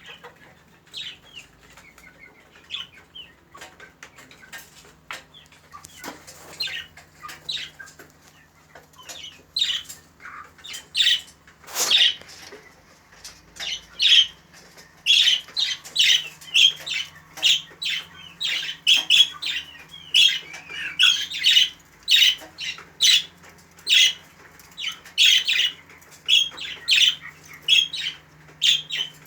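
Many birds chirping and calling, a quick run of short high calls that grows busier and louder from about halfway through, over a low steady hum.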